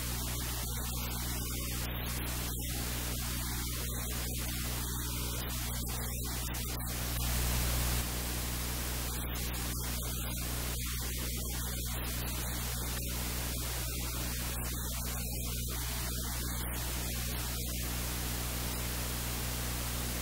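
Steady static hiss with a low electrical mains hum, briefly a little louder about seven seconds in.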